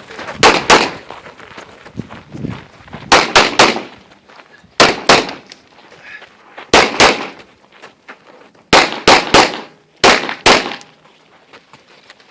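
9mm Glock 34 pistol fired in quick strings of two or three shots, with pauses of a second or two between strings as the shooter moves from target to target.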